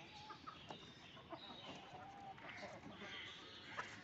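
Chickens clucking faintly now and then, with a few light taps.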